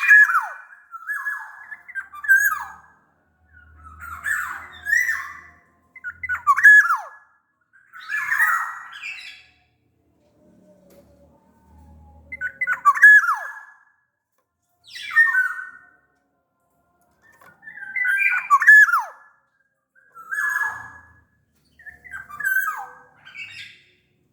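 Black-naped oriole (kepodang) of the large Sumbawa form singing in a string of short fluting and harsh phrases, many ending in a note that slides down, with a short pause about halfway through.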